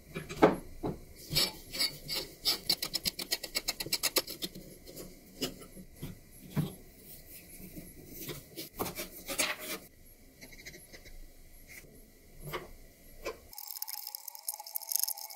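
Flat screwdriver scraping and clicking in the slots of rusty screws on an antique cast-iron potato peeler as they are worked loose, with a quick run of clicks about three seconds in and another burst a few seconds later. Near the end it gives way to a steady hiss with a held tone.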